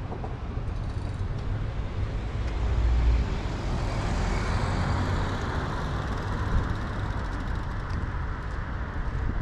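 Road traffic on a city street: a vehicle drives past, its tyre and engine noise swelling and then fading over a few seconds.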